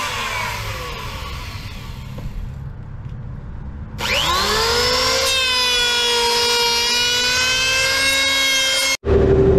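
Electric hand planer. Its motor winds down just after the start, then is switched on again about four seconds in, spinning up to a steady whine as it runs along a wooden board. The sound cuts off suddenly near the end.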